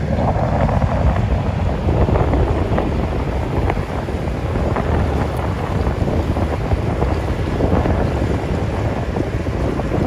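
Wind buffeting the microphone: a loud, low rushing rumble that rises and falls in gusts.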